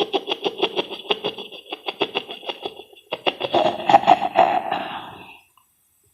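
A man's voice making a vocal sound effect: a rapid, rhythmic pulsing at about seven beats a second, rising to its loudest about four seconds in and stopping about five and a half seconds in.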